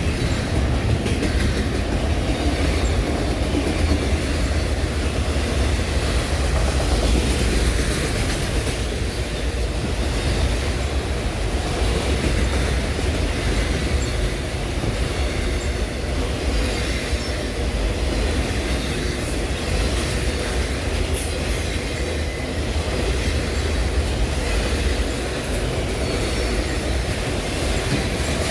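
Norfolk Southern freight train's cars rolling past: a steady rumble and clatter of steel wheels on the rails, with some wheel squeal.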